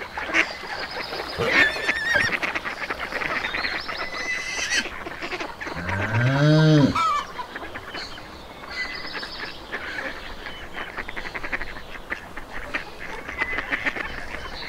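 Farmyard animal sounds: poultry calling, with small birds chirping high up. About six seconds in comes one long, low animal call that rises and then falls in pitch; it is the loudest sound.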